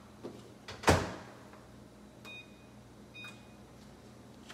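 A microwave oven door shuts with a knock about a second in. Two short electronic beeps from the keypad follow about a second apart, and the oven runs with a faint steady hum.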